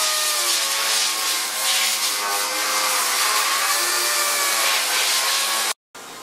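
Air-powered dual-action sander running against the bare, rust-pitted steel of a car's rocker panel: a steady whir with a slightly wavering pitch over a strong hiss, as the rust is sanded back for bodywork. It breaks off suddenly near the end, leaving fainter workshop background.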